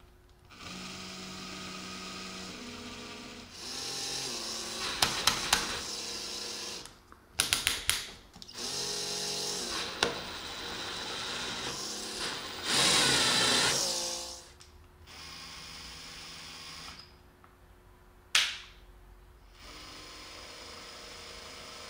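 Bosch GSR 12V-15 cordless drill/driver's motor and gearbox running in several short bursts, speeding up and slowing down in one of them. Twice there are quick runs of sharp clicks from the torque clutch slipping, and near the end a single click between two runs as the forward/reverse switch is pushed over.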